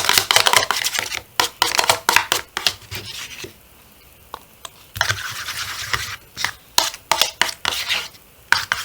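Shampoo-and-salt slime being stirred in a bowl: quick, repeated scraping and clicking against the bowl. The stirring pauses for about a second and a half midway and again briefly near the end.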